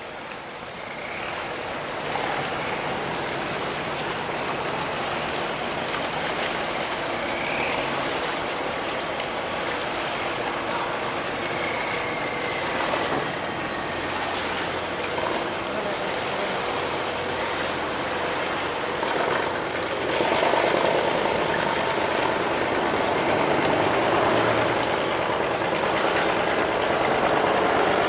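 Tugboat engine running steadily with a low hum, getting louder about two-thirds of the way through.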